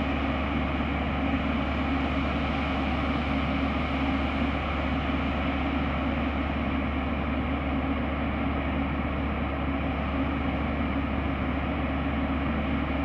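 Steady rumble and hiss of the SRT Sprinter diesel railcar's engines running at the platform, holding one level with no change.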